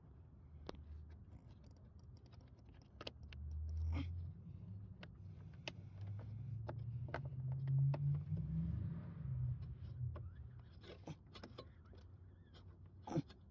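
Scattered clicks and light knocks from hands and the phone moving about in the car's front end, over a low rumble that swells twice, loudest about eight seconds in.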